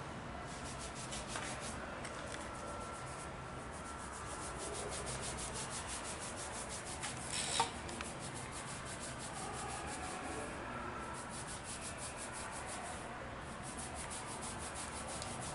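Fingers scrubbing and massaging wet hair and scalp during a salon shampoo: a steady, fast, even rubbing and scratching close to the microphone. A short knock sounds about seven and a half seconds in.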